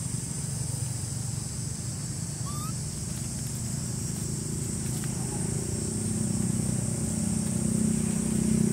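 A motor engine running, a steady low hum that grows louder over the last few seconds, over a steady high hiss.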